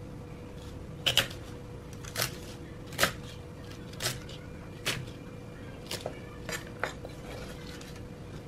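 Kitchen knife chopping green vegetable stalks on a thick round wooden chopping board, with sharp knocks roughly once a second, some in quick pairs. A faint steady hum runs underneath.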